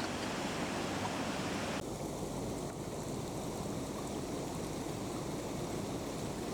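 Steady rushing of a river or stream. About two seconds in, the hiss changes abruptly and loses its upper brightness.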